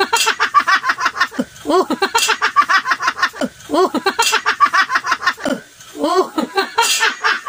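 Several people laughing and giggling in quick repeated pulses, with high-pitched excited voices mixed in.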